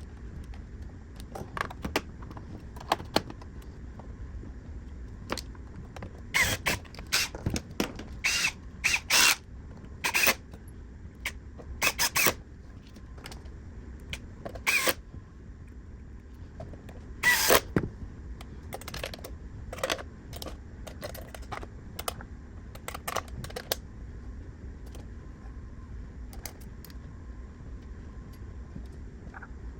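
Small parts of an Xbox Series S console being handled and fitted back together: scattered sharp clicks and knocks, in bunches about six to thirteen seconds in and again around seventeen seconds, over a steady low hum.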